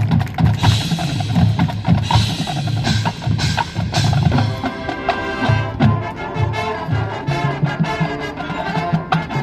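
Marching band playing: a drum-led percussion passage with bass drums pulsing and sharp hits, then sustained wind and brass chords joining about halfway.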